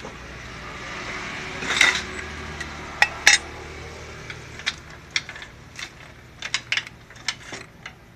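Sharp metallic clinks and clanks, a dozen or so irregular strikes with a short ring, as metal tools or parts are knocked together. Under them a low motor hum slowly fades.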